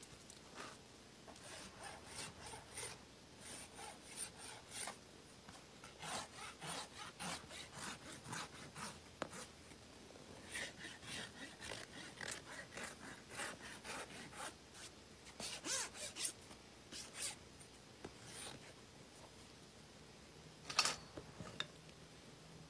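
A farrier's hand tools scraping and rasping the horn of a shod horse's hoof in quick repeated short strokes, coming in bunches with short pauses. One sharp click near the end.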